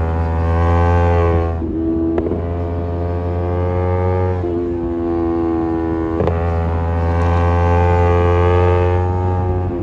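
Kawasaki Z250 motorcycle engine running through an aftermarket SeaPro muffler, pulling under throttle with a steady, slightly wavering exhaust note. The note breaks briefly about two seconds in and again about six seconds in, then picks up and builds again.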